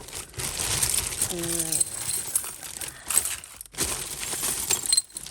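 A mass of costume jewellery and loose beads clattering and jangling as it is pulled out of a plastic bag and spilled onto a surface, with the bag crinkling. Sharp clicks run throughout.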